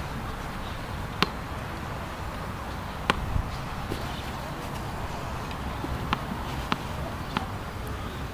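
Tennis ball bounced on a hard court ahead of a serve: single sharp pops about a second in and around three and four seconds in, then three more about half a second apart near the end, over a steady outdoor background hiss.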